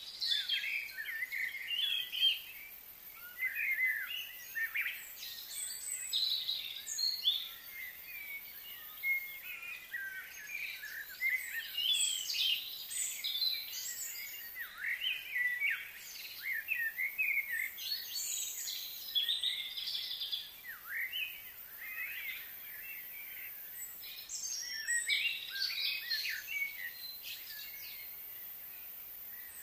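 Several birds chirping and singing at once: many short, high calls overlapping one another, with brief lulls.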